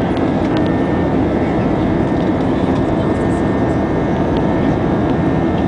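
Steady jet engine and airflow noise inside the cabin of an Airbus A320, heard from a window seat beside the engine as the aircraft climbs out after takeoff.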